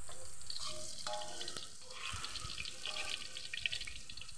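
Tofu cubes frying in hot oil in a wok over a wood fire, a dense sizzling crackle, with light clicks of a metal spatula turning them against the wok and one sharper click near the end.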